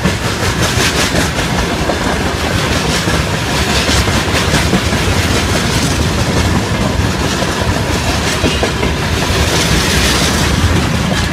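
Freight train wagons, open gondola cars and a tank car, rolling past close by: steady wheel-and-rail noise with a regular clatter of wheels over rail joints, growing a little louder near the end.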